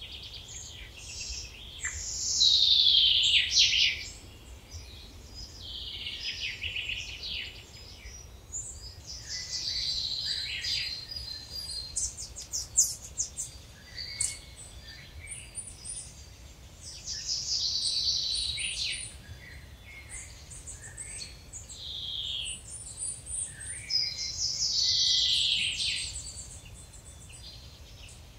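Songbirds singing, several overlapping, with one loud song phrase that falls in pitch repeated every several seconds, over a faint low rumble.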